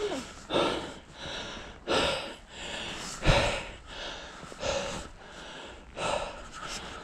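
A person breathing hard, loud rasping breaths in and out roughly once a second, from the exertion of climbing a steep stairway.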